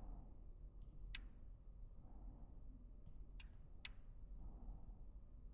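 Three faint, sharp clicks of thermostat buttons being pressed, one about a second in and two close together past three seconds, over a low steady hum.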